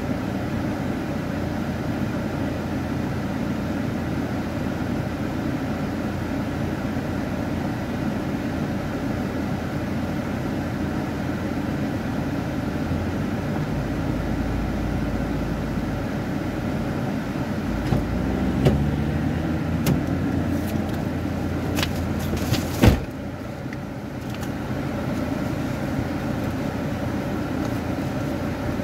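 Car engine idling steadily while parked, heard from inside the cabin. A few clicks come in the second half, and one sharp knock about three-quarters of the way through.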